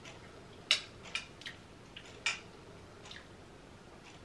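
Mouth sounds of someone chewing a spoonful of futfut, injera soaked in sunflower-seed sauce: a handful of short, soft wet clicks and smacks, two of them louder, about a second and a half apart.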